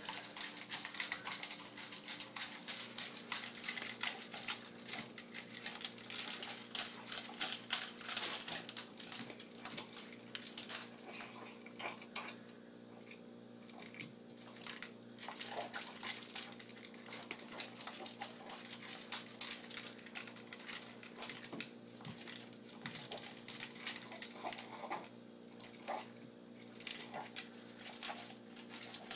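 A pug eating its dinner fast: rapid crunching and clicking, dense for the first ten seconds or so, then sparser and quieter.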